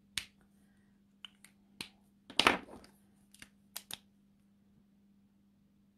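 Copic alcohol markers being handled: a run of sharp plastic clicks of caps and barrels over about four seconds, with one louder clatter near the middle, then it falls quiet.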